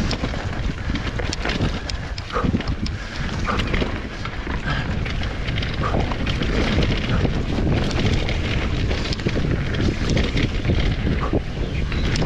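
Wind buffeting an action camera's microphone on a fast mountain-bike descent, over the rolling noise of tyres on a dirt trail. Frequent short knocks and rattles come from the bike over bumps.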